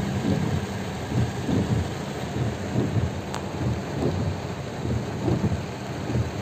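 Heavy rain drumming on a car's roof and windshield, heard from inside the car: a steady hiss with an uneven low rumble.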